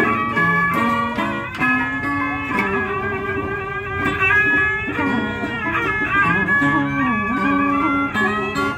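Vietnamese traditional string ensemble playing Cao Đài ritual music (nhạc lễ): a plucked moon lute (đàn kìm) and guitar with a bowed two-string fiddle (đàn cò), many notes bending and sliding in pitch.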